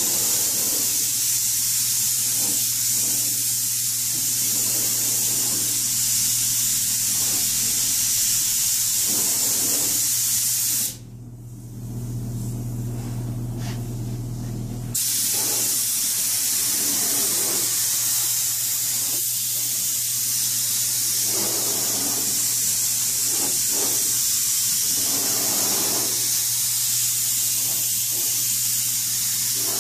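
Gravity-feed paint spray gun hissing steadily as compressed air atomises paint onto tractor sheet metal. The hiss stops for about four seconds a little before the middle, leaving a low hum, then starts again.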